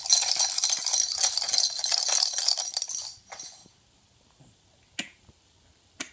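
Something small and hard being shaken fast, giving a loud jingling, clinking rattle for about three seconds that then dies away, followed by two short clicks.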